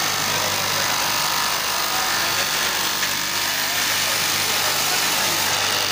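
Straight knife cutting machine running steadily: its electric motor drives the vertical reciprocating blade as it cuts through a thick stack of fabric layers, with a constant hum.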